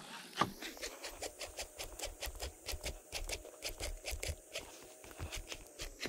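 Baitcasting reel being cranked to retrieve a topwater frog lure, giving an even run of short clicks at about four a second after a sharper click about half a second in.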